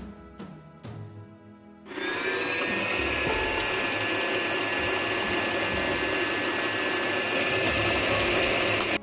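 Brother electric sewing machine motor running steadily at high speed, a continuous whine that starts suddenly about two seconds in and cuts off abruptly near the end.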